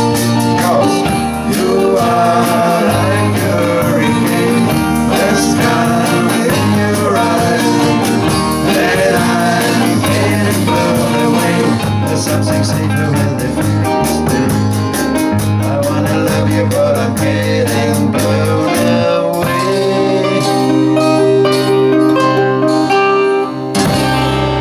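Live band playing a rock song on steel-string acoustic guitar, nylon-string Spanish guitar, electric bass and drums. Near the end the playing settles into long held chords.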